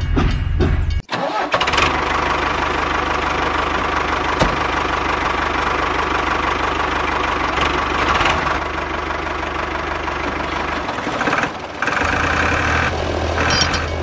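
An engine starting up about a second in, then running steadily with a constant low hum. It drops out briefly near the end.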